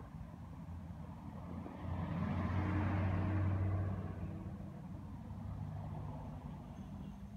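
Cars driving past on a street over a low engine rumble. One vehicle passes closest and loudest about two to four seconds in, its engine and tyre noise swelling and then fading.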